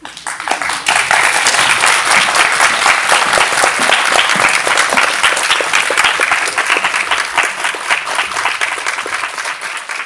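Audience applauding, breaking out suddenly and staying loud, then beginning to die away near the end.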